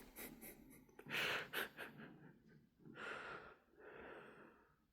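Faint breathing sounds close to the microphone: a few short, soft, breathy puffs like sniffs or exhalations.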